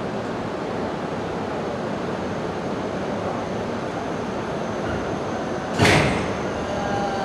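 Shinkansen E5-series set creeping up to a waiting E6-series set over a steady hum of train equipment. Near the end comes a single loud clunk as the two sets' nose couplers meet.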